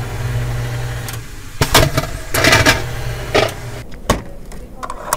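A machine's motor hums steadily, with several loud noisy bursts over it. Near the end come a few sharp clicks as an impulse heat sealer's bar is worked by hand.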